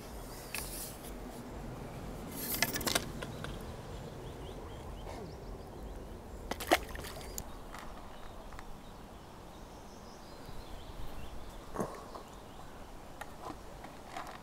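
Faint splashing and trickling water, with a few sharp clicks standing out, the loudest about two-thirds of the way through.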